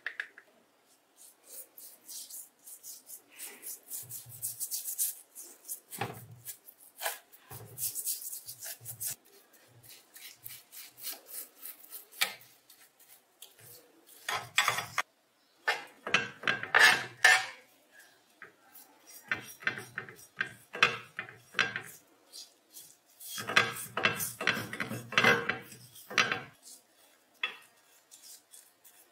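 Rusty metal bench-grinder parts being handled and rubbed in a metal tray: irregular scraping and rubbing with small metallic clinks, including a paintbrush worked over a wet wheel guard. Louder stretches of rubbing come about halfway through and again near the end.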